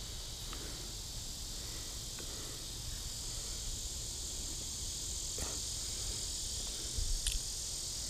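Steady, high-pitched chorus of insects, with a couple of faint clicks about five and seven seconds in.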